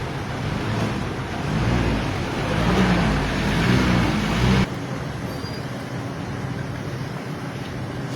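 Motor vehicles running, with traffic noise building for a few seconds and then cutting off suddenly about four and a half seconds in, leaving a lower steady rumble.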